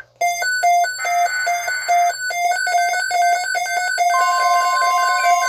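Midland NOAA weather radios sounding their alert alarms: rapid repeating electronic beeps from more than one radio overlapping at different pitches, with a steady tone joining about four seconds in.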